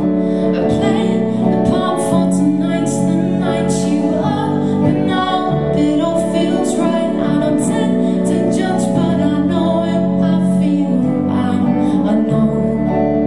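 Live music: a woman singing to her own electric guitar.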